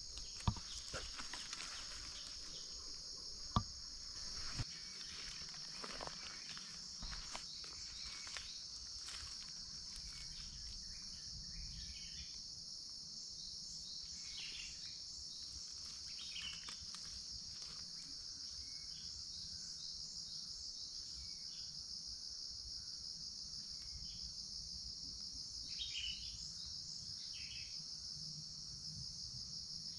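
Steady high-pitched buzzing of an insect chorus in tropical vegetation, with a few sharp clicks and rustles in the first several seconds.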